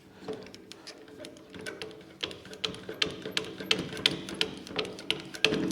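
Irregular metallic clicks and taps from small parts of a mini metal lathe being handled and turned during disassembly. The clicks grow denser and louder from about two seconds in, over a steady low hum.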